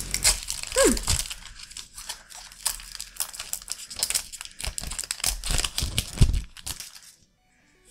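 Plastic Pokémon trading-card booster pack wrapper crinkling and tearing as it is handled and opened, a rapid run of crackles that stops abruptly about seven seconds in.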